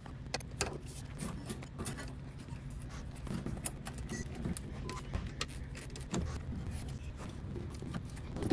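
Scattered light clicks, taps and scrapes of hand tools working at rubber coolant hoses and their clamps on the engine, over a low steady hum.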